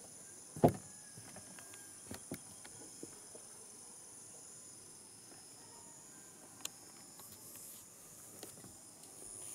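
Steady high-pitched chorus of insects, with a few scattered clicks; the sharpest and loudest comes just under a second in.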